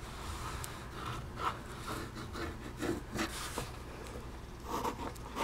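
Pen tracing around a paper pattern piece on a sheet of paper: soft, irregular scratching and rubbing strokes, with the paper shifting under the hands.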